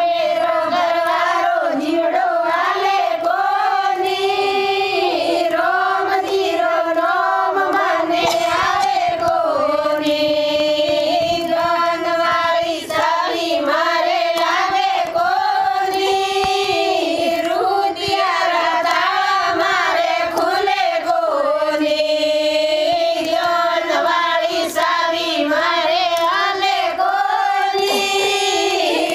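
Group of women singing a Hindu devotional bhajan together in kirtan style, one continuous melodic chant.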